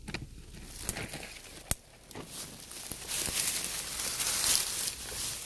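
Dry leaf litter and undergrowth rustling and crackling as they are pushed aside and handled, with a couple of sharp twig snaps early on. The rustling gets louder about three seconds in.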